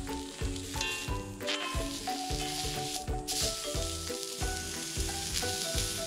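Meat and shrimp sizzling on a hot flat-top griddle, a steady hiss that swells a little in the middle, under background music with a steady beat.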